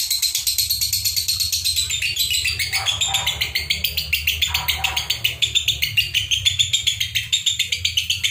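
Lovebirds of the Fischer's type chattering without a break: a rapid, unbroken stream of high, shrill chirps. This nonstop chatter is what keepers call a 'konslet' lovebird.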